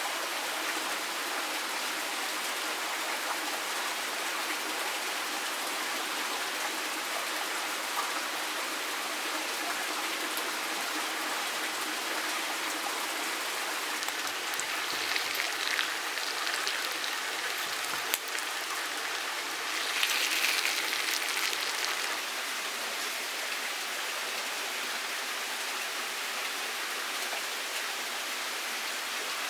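Steady rush of running water, with a few louder noisy bursts about halfway through and a sharp click in between.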